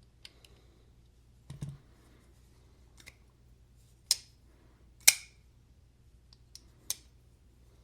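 A series of sharp clicks and snaps, spaced about a second apart, the loudest in the middle: the Kansept ODD 21 folding knife's blade being flipped open and snapped shut on its newly fitted Skiff pivot bearings, testing the action.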